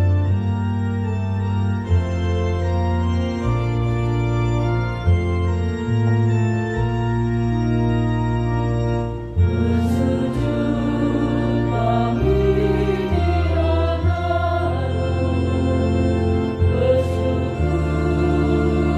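Organ playing slow, held chords over a steady bass line; about halfway through, a choir comes in singing over it.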